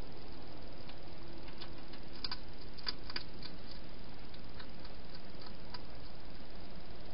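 Wild hedgehog eating at a feeding bowl: scattered faint clicks of chewing, thickest about two to three seconds in, over a steady hiss.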